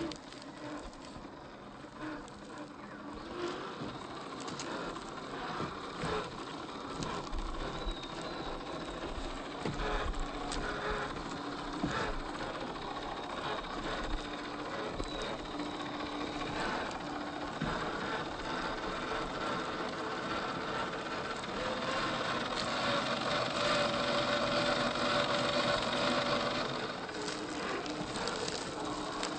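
Electric motor and geared drivetrain of a 1/10-scale Boom Racing BRX02 RC crawler whining as it crawls, swelling louder about two-thirds of the way through. Scattered clicks and crackles come from the tyres on dry leaves and twigs.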